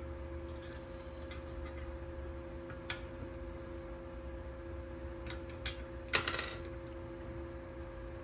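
Light metallic clinks and taps of small metal parts being handled, a few single clicks and then a short cluster about six seconds in, over a steady hum.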